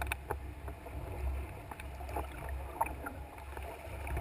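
Small waves lapping and splashing irregularly against the bow of a moving canoe, over a steady low rumble of wind on the microphone.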